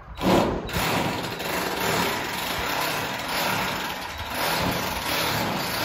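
Forklift engine running steadily at idle. It cuts in abruptly just after the start.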